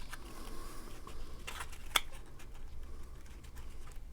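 Cardstock being handled and fitted into place: faint paper rustles with a few light taps and clicks, the sharpest about two seconds in.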